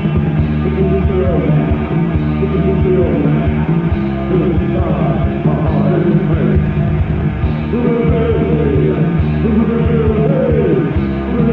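Goth rock song played by a band, with drums and singing. The sound is dull, with no high treble.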